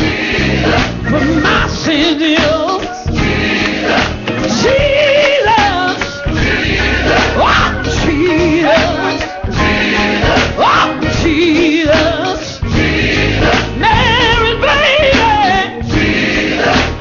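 Gospel music: a choir and lead voices singing over instrumental accompaniment.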